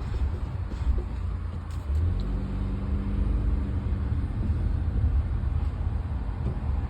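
A car running with a steady low rumble, and a faint steady hum joining in about two seconds in. No grinding noise is heard, as if checking that a grinding fault has been cured.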